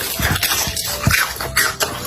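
Close-miked eating sounds: a run of crisp bites and crunchy chewing, irregular and several a second, over background music.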